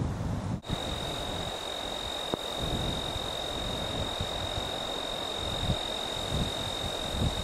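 A single high-pitched insect trill held on one steady tone, starting about half a second in. Low gusts of wind buffet the microphone underneath.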